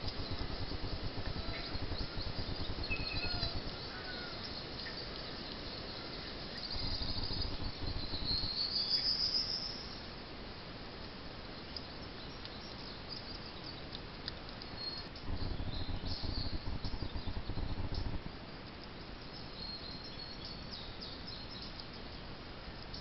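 Woodland ambience picked up by a trail camera's microphone: scattered bird chirps and calls over a steady insect buzz, with stretches of low rumble that come and go.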